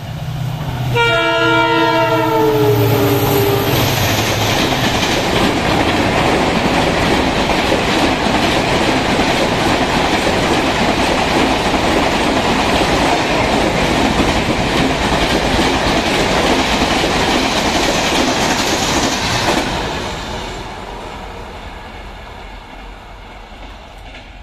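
Express train passing at speed: the locomotive sounds its horn for about two and a half seconds, the pitch dipping slightly as it goes by, then LHB passenger coaches rush past with loud wheel and rail noise and clickety-clack. The noise stops sharply about 19 seconds in as the last coach clears, then fades into the distance.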